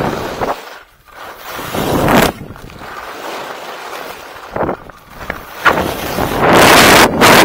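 Skis scraping and carving on hard-packed man-made snow through a series of turns, each turn a surge of hissing scrape, with wind on the microphone; the loudest and longest scrape comes near the end.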